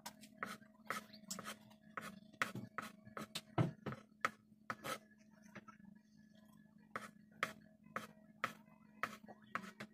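Kitchen knife chopping boiled eggs on a wooden cutting board: quick knocks of the blade on the board, about three a second, with a pause of a second or two midway. A faint steady hum runs beneath.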